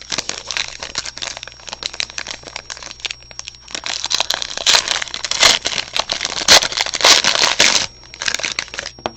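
Plastic trading-card packaging crinkling and crumpling as it is handled by hand, in dense rapid crackles. They grow louder in the second half and mostly stop about eight seconds in.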